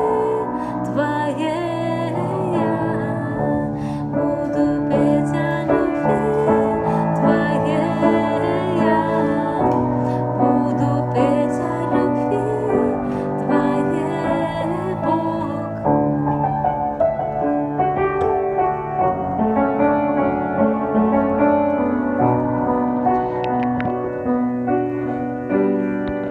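Instrumental outro of a worship song: piano and keyboard playing, with wordless vocal runs over them for roughly the first half, then the piano carrying on alone.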